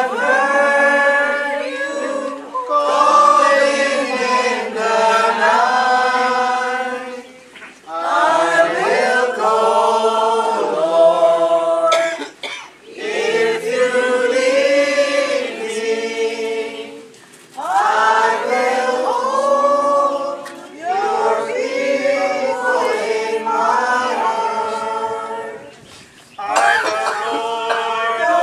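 A congregation singing a communion hymn together, in phrases of about five seconds with short pauses between them.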